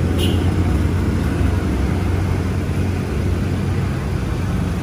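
Pickup truck's engine idling steadily, a low even hum, with one short click just after the start.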